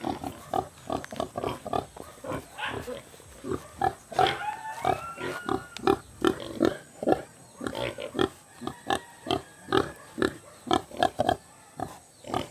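Two pigs grunting in quick, short grunts, several a second. A few longer, higher calls that bend in pitch come about four to six seconds in.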